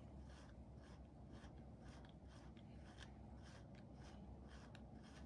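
Faint, quick strokes of a grooming brush through a toy poodle's coat, about three a second, during line brushing.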